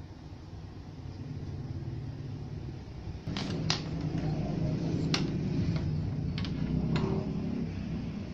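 Scattered sharp clicks and knocks as a small potentiometer board is handled and fitted against the metal front panel of a power amplifier, over a steady low hum that grows louder about three seconds in.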